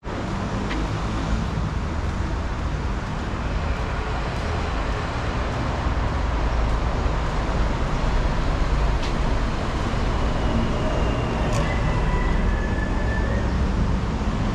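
A vehicle running steadily: a constant low engine rumble under an even rushing noise.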